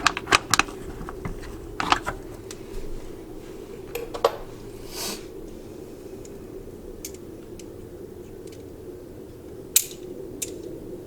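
Scattered clicks and knocks of a small hand socket and ratchet being handled and turned while a small screw is snugged into a plastic wheel well liner, over a steady low hum. A cluster of sharp clicks comes in the first second, with a short hiss about halfway through.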